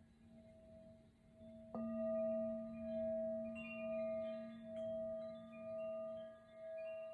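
Tibetan singing bowl tuned to A, ringing faintly, then struck about two seconds in and ringing on with a slow wavering swell and fade. Another strike comes right at the end.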